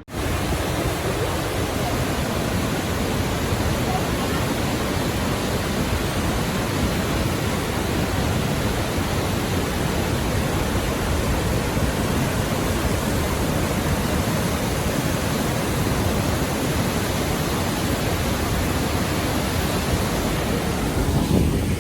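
The Grawa waterfall: falling water making a loud, steady, even rush.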